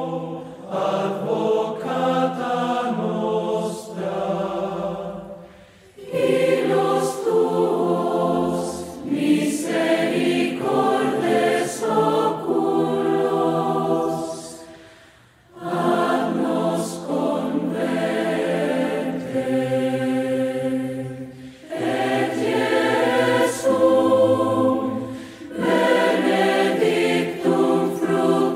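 A choir singing a slow hymn in long held phrases, breaking briefly between phrases.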